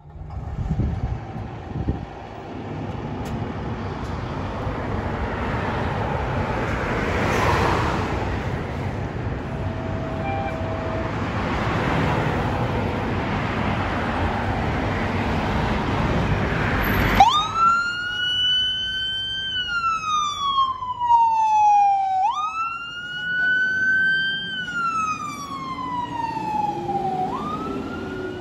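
Steady street and traffic noise, then about seventeen seconds in a fire engine's siren starts up and wails: each cycle jumps up sharply in pitch and falls slowly, repeating about every five seconds. The siren marks a code 3 emergency response.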